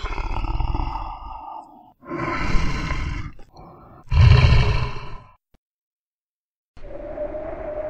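Two animal roars from a sound-effects track, about two and four seconds in, each lasting a second or so. A short silence follows, then near the end a long held tone that rises slightly, like a whale call.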